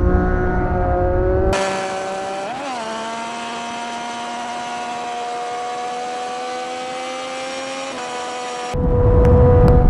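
Sport motorcycle engine running at high, steady revs, a whine that creeps slightly up in pitch, with a brief rise and dip in revs about two and a half seconds in. Heavy wind rush on the microphone covers the first second and a half and the last second, with the engine heard under it.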